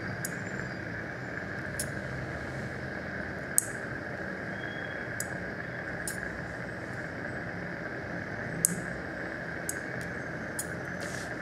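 Steady hiss of a dental surgical suction tip drawing air in the patient's mouth, with a sharp metallic click every second or two from the suturing instruments.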